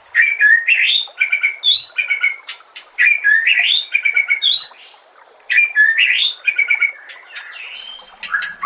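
White-rumped shama (murai batu) singing a fast run of varied whistled and chattering phrases, with a short pause about halfway through.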